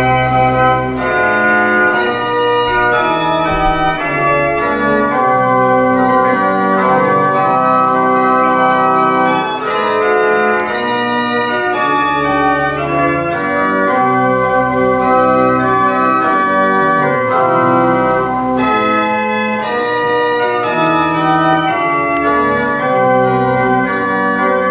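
Organ music: slow, sustained chords that move from one to the next every second or two.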